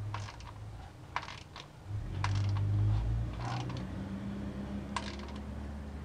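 Scattered metallic clicks and clinks of a ratchet and socket on a tapered plug of a ZF five-speed manual gearbox as the plug is snugged up, about seven in no steady rhythm. A low hum swells about two seconds in and then settles into a steady drone.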